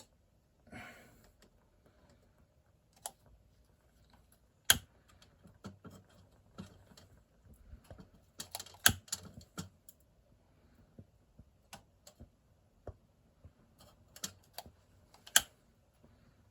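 Scattered light clicks and taps, a few of them sharper, from handling the solid-fuel burner while trying to light fuel tablets that will not catch, which the owner puts down to their being damp.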